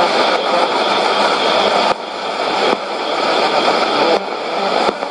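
Sony shortwave receiver in AM mode playing a weak FM-modulated shortwave broadcast: dense rushing noise and garbled audio with no clear speech. The level drops suddenly four times and climbs back.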